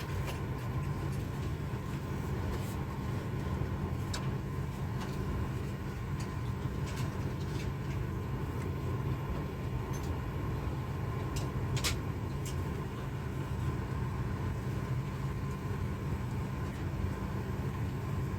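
Steady low drone of a Boeing 737-800 cabin with a constant faint tone, and a couple of faint clicks.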